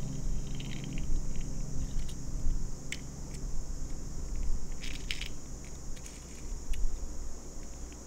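Scattered light clicks and scrapes of small plastic toy cars being handled, with a small cluster about five seconds in, over a low steady rumble and hiss.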